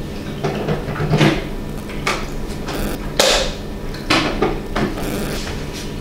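Plastic knocks and clicks, about one a second, from a Braava Jet M6 mopping robot's lid and water tank being handled, opened and pressed shut so the robot can start. A steady low hum runs underneath.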